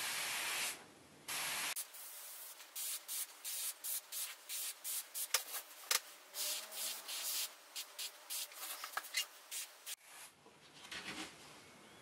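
Airbrush spraying a thin shimmer coat of paint: two longer hisses, then many short puffs of spray a few times a second, which die down about ten seconds in.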